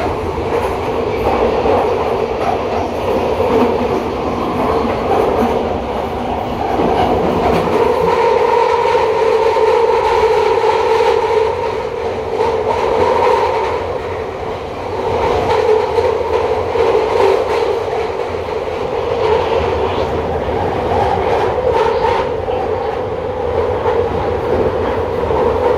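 London Underground Victoria line 2009 Stock train running at speed through a deep tube tunnel, heard from inside the carriage: a steady loud roar of wheels on rail with a droning tone and scattered rail clicks, dipping briefly about halfway through.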